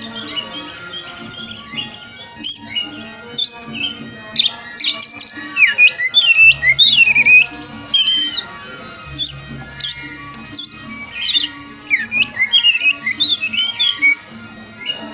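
Oriental magpie-robin song: loud, sharp whistled phrases and harsh squawking notes in quick bursts, over steady background music.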